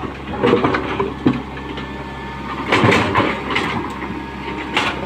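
An engine running steadily, with several irregular knocks and clatters over it.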